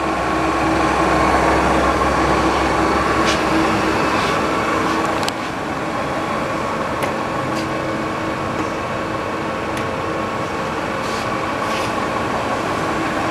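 Hwacheon HL 580 centre lathe running under power with its feed engaged: a steady mechanical hum and whine from the spindle and gearing, with a few faint clicks. The sound drops a little in level about five seconds in.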